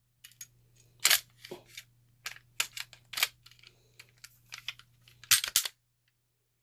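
A series of sharp mechanical clicks and clacks, with a quick cluster of the loudest about five seconds in: a handgun being handled, its metal and polymer parts clicking.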